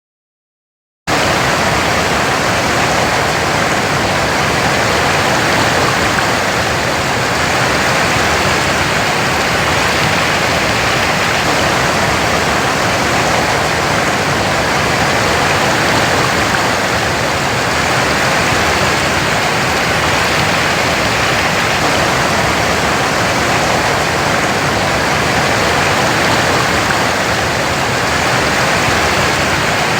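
Waterfall: a steady, loud rush of falling water that cuts in abruptly about a second in.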